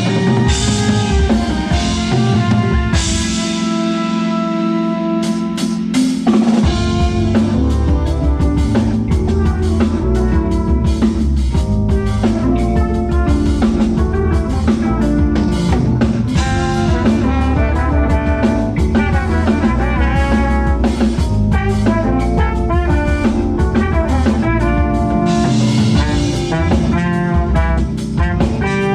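Live band playing an up-tempo tune on drum kit, bass and other instruments. About three seconds in the bass and low drums drop out for a few seconds, then the full band comes back in.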